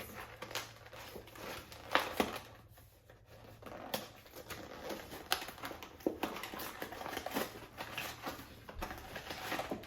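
A product box and its plastic packaging being opened and handled: scattered sharp clicks and taps over crinkling and rustling.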